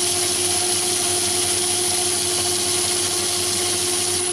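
Metal lathe running steadily with its chuck spinning: an even motor hum with a faint high whine.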